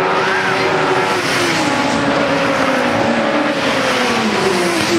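Racing saloon car engines running at speed past the track edge, several engines overlapping. Over the last couple of seconds one engine's pitch falls steadily as it goes by.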